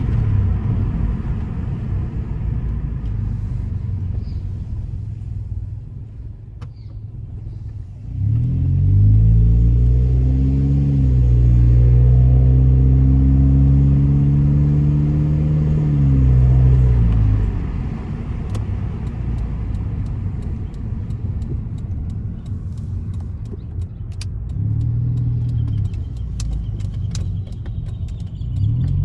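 Hyundai i30 exhaust, run without a muffler, heard from inside the car while driving. About eight seconds in the engine is pushed hard and the revs climb and stay high and loud for several seconds, then it eases back to a lower drone. A shorter pick-up in revs comes near the end.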